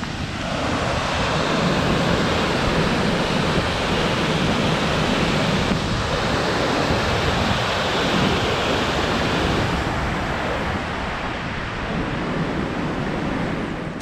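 Waterfall rushing, a steady, full wash of water noise heard from the top of the falls, with some wind on the microphone.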